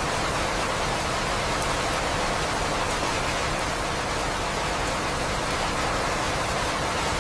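Steady rainfall: an even, unbroken hiss with a few faint drop ticks and no thunder.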